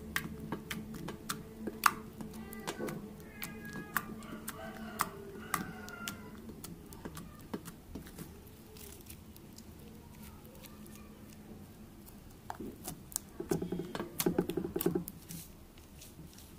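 Homemade shampoo slime being pressed and poked by fingers, giving small wet clicks and pops throughout, with a short burst of rapid squishing crackle near the end.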